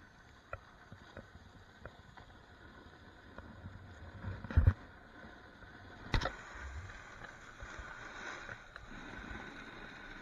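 Snowboard sliding through powder snow, a steady swishing hiss of the board on snow. It is broken by two loud thumps about four and a half and six seconds in.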